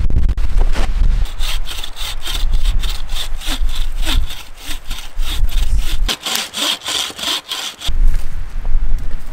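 Hand saw cutting through a log in quick, even back-and-forth strokes, several a second, stopping about eight seconds in. A low rumble comes at the start and again after the sawing stops.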